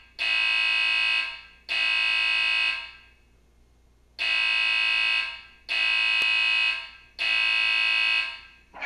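Fire alarm speaker sounding a steady, buzzy horn-like tone in groups of three: two tones of about a second each, a pause of about a second and a half, then three more tones. This is the evacuation alarm signal.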